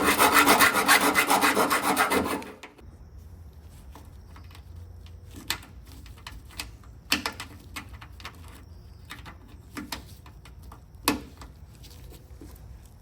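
Hand file rasping in quick strokes across the edge of a sheet-steel bolt hole for about two and a half seconds, smoothing the edge so a captive nut will fit. This is followed by several short, light metal clicks and taps.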